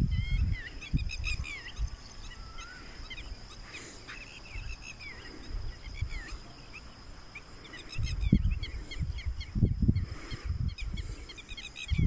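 Wind gusting across the microphone in rumbling buffets, strongest near the start and again in the last few seconds. Many small birds chirp throughout with short calls, some rising and falling.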